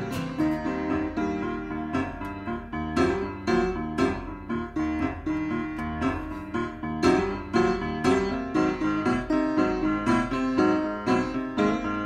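Background piano music, a melody of repeated struck notes at a steady pulse.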